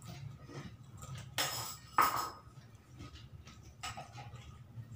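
Eating with the hands from a ceramic plate: small scrapes and clicks of fingers working rice and fried fish, with two short louder noises about one and a half and two seconds in, over a low steady hum.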